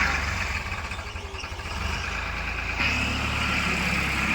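Diesel engines of a backhoe loader and tractors running steadily. The sound changes abruptly about three seconds in.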